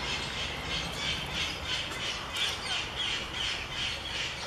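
Caged birds in an aviary calling steadily, short squawking calls repeating about two to three times a second.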